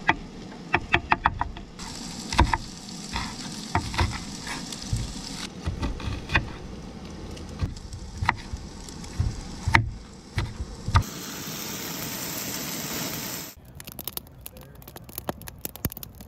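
Kitchen knife chopping onion and green onion on a wooden cutting board: irregular knocks of the blade on the board, some in quick runs. About eleven seconds in, diced chicken sizzling in a cast-iron skillet, a steady hiss, then a quick run of small crackling ticks near the end.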